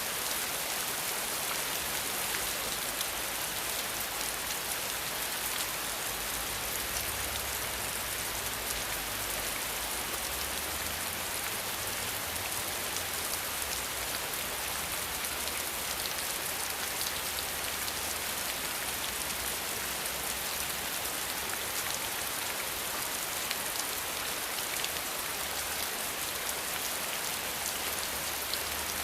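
Steady rain falling, a continuous hiss of drops pattering on surfaces, with a faint low rumble beneath.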